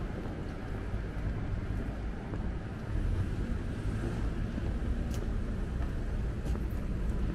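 Steady low rumble of outdoor city ambience, a little louder from about three seconds in, with a few faint sharp clicks about five and six and a half seconds in.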